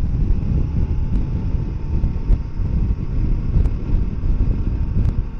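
Wind rumbling across the microphone over the running noise of a Kawasaki Versys 650 motorcycle under way, steady throughout.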